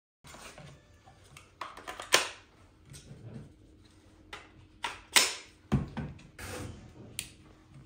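Sharp clicks and knocks of hard plastic being handled: a DeWalt power-tool battery and adapter are fitted and latched onto a cordless hot-melt knot filler gun, and the parts are set down on a wooden workbench. The loudest clicks come about two seconds in and about five seconds in.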